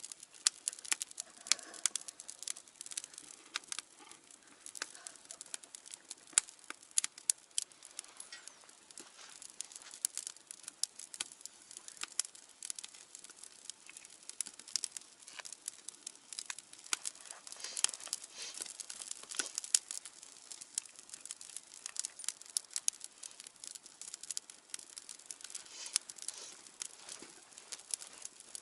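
Wood fire burning in a fire grill: irregular sharp pops and snaps over a soft hiss of flame.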